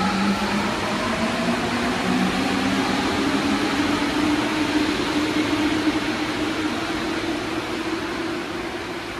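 Paris Métro Line 14 train standing at the platform with its doors open, giving a steady whirring hum. A low tone rises slowly in pitch through the middle, and the sound eases off slightly near the end.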